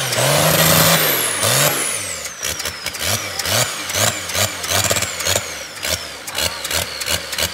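Cummins 6BT inline-six diesel being cranked on its starter, pulsing unevenly with sharp sputters several times a second as it tries to fire without running cleanly. The mechanics put the poor start down to the injection pump being fitted out of time.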